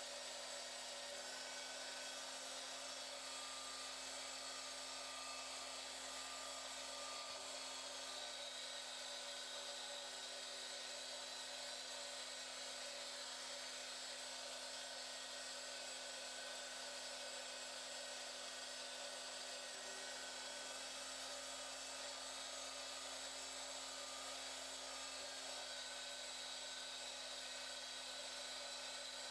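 MX-180D 7x12 mini metal lathe with a 600 W motor running steadily while turning a piece of aluminum stock: an even motor whine with a hiss of cutting.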